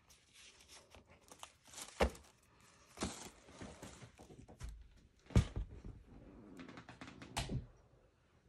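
Paper envelopes rustling and sliding as they are handled and set down on a wooden tabletop, with a few soft knocks, the loudest about five seconds in.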